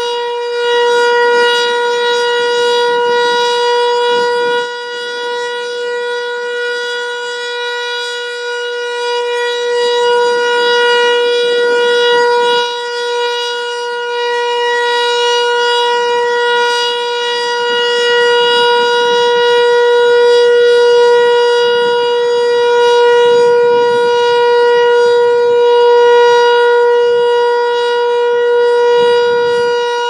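ASC T-121 electronic outdoor warning siren sounding its Alert signal: one steady tone with no rise or fall in pitch, its loudness swelling and dipping slowly.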